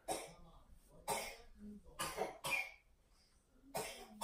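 A young child coughing: a run of about five short, sharp coughs spread through a few seconds.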